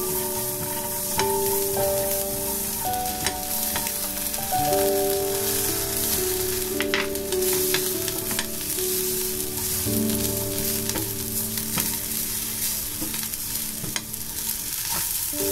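Diced carrots and green soybeans sizzling in oil in a nonstick pan while a spatula stirs them; cooked rice is added partway through and scraped and broken up, with scattered clicks from the spatula. Soft background music with a melody of held notes plays throughout.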